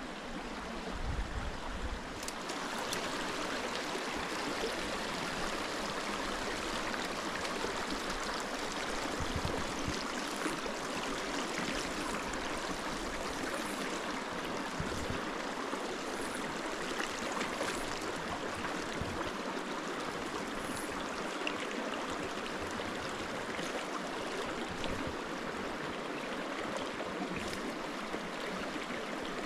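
Small creek flowing steadily with a good amount of water: a constant sound of running water.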